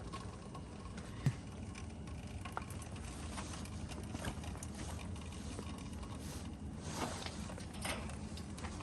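Outdoor central air conditioner unit running with a steady low hum, with scattered soft crunches and a sharp click about a second in.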